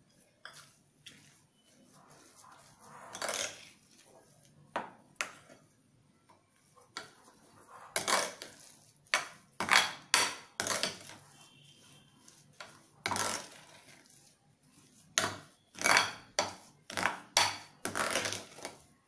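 Mashed potato being mixed in a glass bowl: irregular scraping and knocking strokes of a steel spoon against the glass, with squelching of the mash, closer together in the second half.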